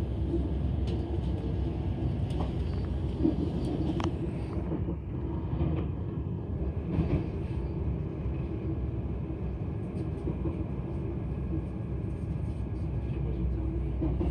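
Interior running noise of a Class 172/0 Turbostar diesel multiple unit under way: a steady drone and rumble from the train in motion, with a few faint clicks scattered through it.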